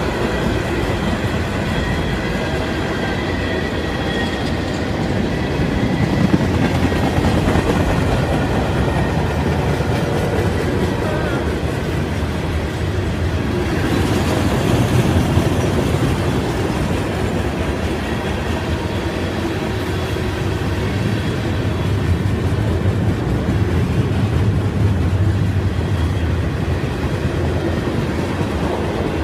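A CSX mixed freight train's cars, covered hoppers among them, rolling past on the rails: a steady rumble and clatter of steel wheels on the track that swells and eases a little as the cars go by.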